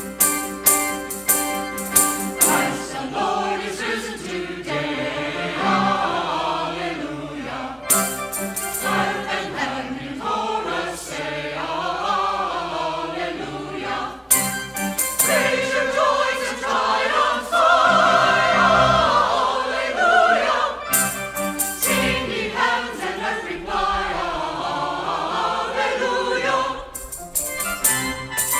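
Mixed church choir singing an anthem with accompaniment. Short passages of loud, rhythmic accompaniment accents come between the sung phrases.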